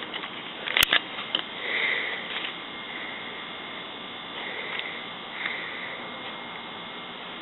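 Steady background hiss and faint hum from a camcorder's microphone, with one sharp click a little under a second in and a few faint soft sounds after it.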